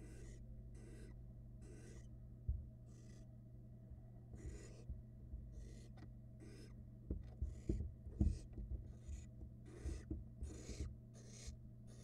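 Barn owl nestlings making their hissing begging calls ('snoring'): short rasping hisses about once or twice a second, over a steady low hum. A few dull thumps come in, the strongest about two and a half seconds in and again around seven to eight seconds.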